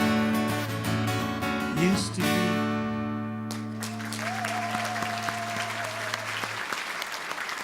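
Acoustic guitar playing its final strummed chords, which ring out and fade. Audience applause starts a little under halfway through while the last chord is still sounding.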